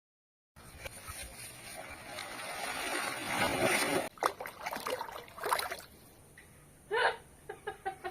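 Water splashing, building over about three seconds and stopping abruptly, then scattered knocks and a short animal call near the end.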